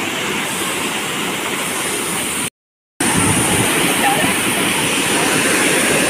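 Waterfall pouring onto rock and into a shallow pool, a steady loud rush of water, broken by about half a second of dead silence midway through.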